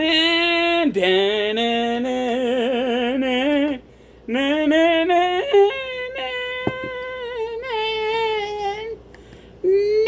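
A voice singing long, wavering, operatic-style held notes in two phrases with a short break between them, ending on a brief note.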